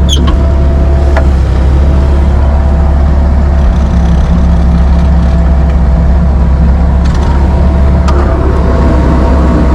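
Bobcat 773 skid steer's diesel engine running steadily at idle, with a constant low hum.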